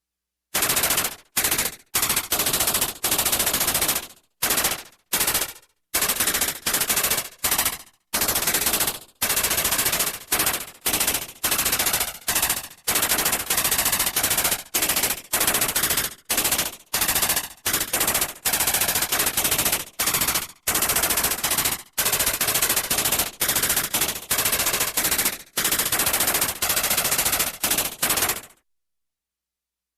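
Synthesized sci-fi electronic weapon sound effect firing rapidly, like an automatic gun, in a long run of bursts separated by short breaks, stopping shortly before the end.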